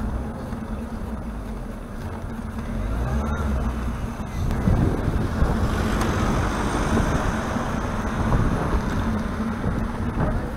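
Wind buffeting the microphone of a bicycle-mounted camera over the low rumble of the ride along the street, with car traffic around. It grows louder about four and a half seconds in.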